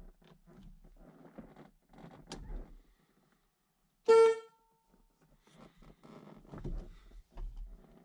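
Light clicking and rubbing of hands working the horn button at the steering-wheel hub. About four seconds in, the 1976 Camaro's horn gives one short, loud honk of under half a second as the centre button makes contact.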